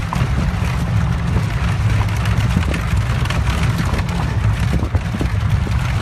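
Horse-drawn Amish buggy rolling along: a steady low rumble from the wheels, with the horse's hooves clopping faintly and irregularly.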